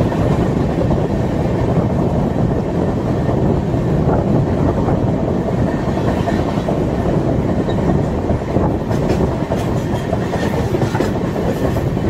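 Passenger train running at speed, heard from aboard: a steady rumble of wheels on the track, with some clicking from the rails toward the end.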